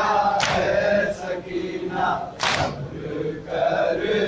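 Mourners chanting a noha together in unison, punctuated by loud, sharp matam slaps (hands striking chests) about every two seconds.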